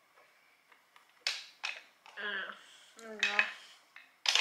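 Plastic and metal parts of a bassinet stand clicking and knocking together as a leg is worked into the base hub: several sharp clacks, the loudest near the end.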